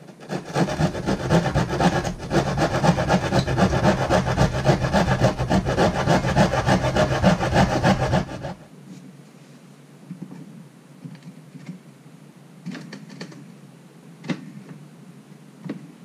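Hand saw cutting wood at the edge of a cutout in a plywood cabinet panel, enlarging the opening: rapid back-and-forth strokes for about eight seconds, then stopping. A few faint clicks and knocks follow.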